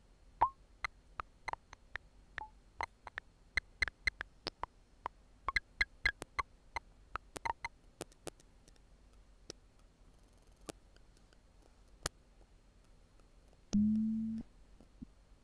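Playback of single components split out of a two-instrument recording by non-negative matrix factorisation (NMF): a sparse, irregular run of thin clicks and ticks, thickest over the first eight seconds, then a short low pitched tone near the end.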